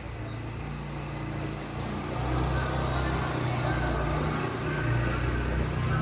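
A vehicle engine rumbling steadily, growing louder about two seconds in.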